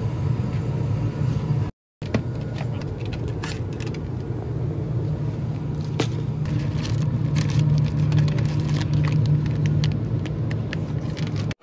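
Steady low hum of a convenience store's refrigerated cases, with clicks and rustles of products being handled and plastic-wrapped packs crinkling in the hand, busier in the second half. The sound cuts out for a moment about two seconds in.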